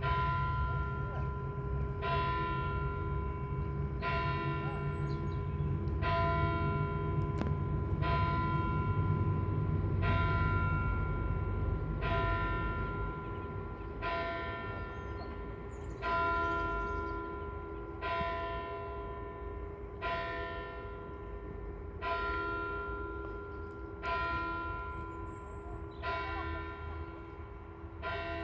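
A single church bell tolling, one stroke about every two seconds, each stroke ringing on with a long hum into the next.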